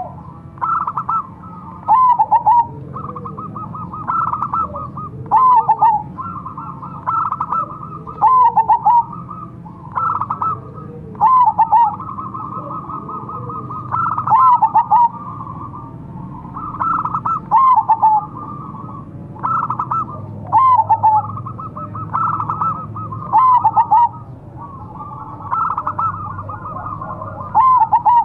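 Zebra dove (perkutut) singing its cooing song: phrases of quick rolling notes with a falling coo around them, repeated about every two to three seconds.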